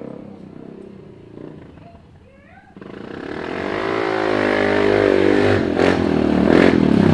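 Kawasaki Brute Force 300 ATV engine, running with a Dynojet stage 1 jet kit in its carburetor. It drops off and fades, then about three seconds in it revs up suddenly and keeps getting louder as the quad accelerates hard.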